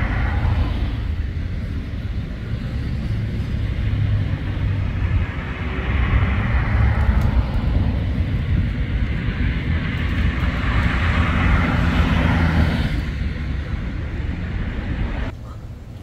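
Urban road traffic: vehicles passing on a street with a steady low engine rumble, the noise swelling and fading as they go by. It drops abruptly to a quieter hum near the end.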